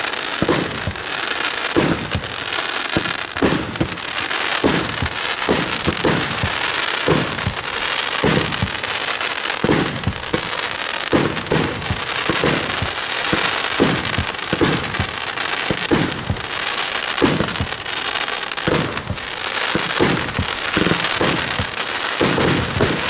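49-shot 30 mm firework cake firing its shots in quick succession, a sharp launch report roughly one to two times a second, over a continuous hiss from the burning gold-rain and star effects.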